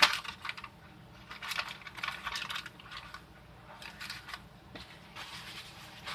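Parchment paper crinkling and crackling as a crisp cheese taco shell is flipped and handled on it, with a sharp click at the start and scattered light clicks and taps.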